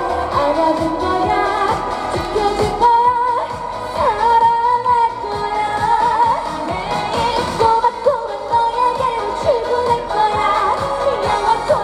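A Korean trot song performed live: a woman singing a wavering melody over an amplified backing track with a steady dance beat.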